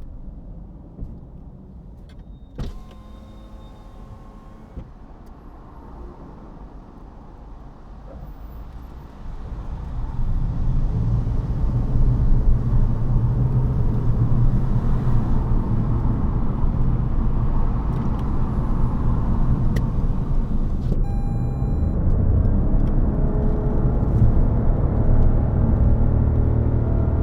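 Road and drivetrain noise inside a Toyota Yaris GR Sport hybrid's cabin: a quiet low rumble at low speed, then about ten seconds in it rises and settles into a steady, louder low rumble as the car picks up speed. A short click sounds about two and a half seconds in.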